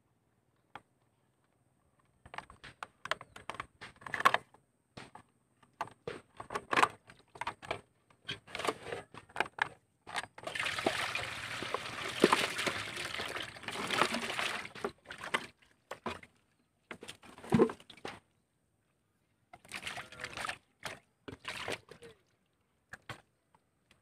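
Muddy water and small fish poured from a cut plastic-bottle trap into an aluminium basin: a steady splashing pour lasting a few seconds in the middle. Before and after it come scattered clicks and knocks as the plastic bottle is handled.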